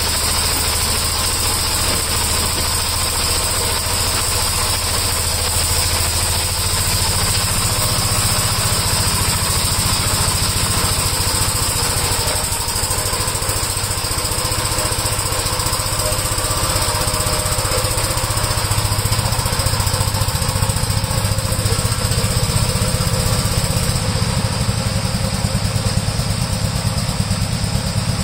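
Gravely garden tractor engine running steadily, shortly after a cold start following a month unused.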